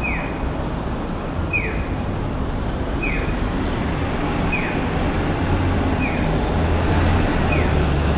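Street traffic rumble with an audible pedestrian crossing signal: a short electronic chirp falling in pitch, repeating evenly about every one and a half seconds.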